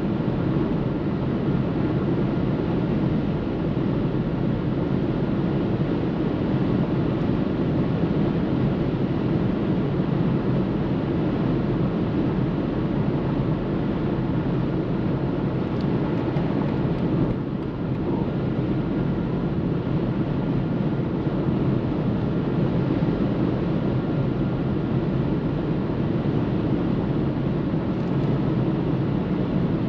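Steady road and wind noise inside the cabin of a 2023 BMW 318i with its 1.5-litre engine, driving on the autobahn. The noise dips briefly a little past halfway.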